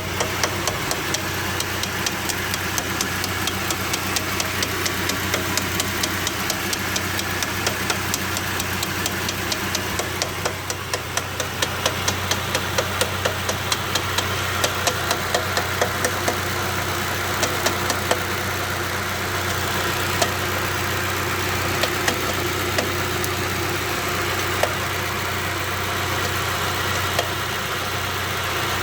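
GAZ 2790 van's engine idling with a rapid, regular knock that is dense for the first stretch and then thins to sparser, sharper knocks. The owner suspects the connecting rod on the first cylinder, whose bearing shell has failed twice before, and also wonders about the newly fitted timing-chain tensioner shoes.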